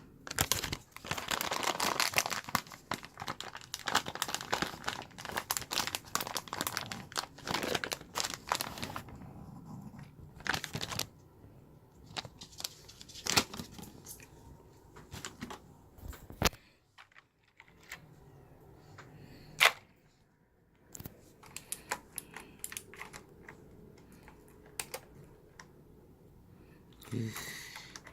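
Crinkling and crackling handling sounds with many small clicks for about nine seconds, then scattered single clicks and taps, while a keyboard is being cleaned with a cleaning gel.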